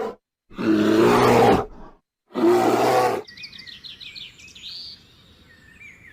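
Two loud, harsh animal calls, the first longer than the second, followed by birds chirping and trilling for the last few seconds.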